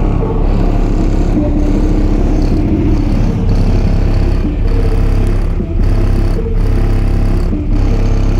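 Bass-heavy music played very loud through a truck's high-powered car audio system, with deep, sustained sub-bass and a steady beat of about one a second.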